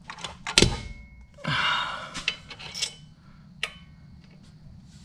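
Metal clicks and knocks as the plates and cover of a twin-disc racing clutch are worked into place on the flywheel by hand. There is a sharp knock about half a second in, a short rushing noise around a second and a half, then a few lighter clicks.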